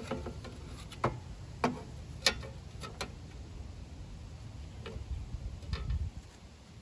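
Handling of an empty tin can on a work table while it is turned and marked: a few sharp ticks and taps, about four in the first three seconds, then two fainter ones later.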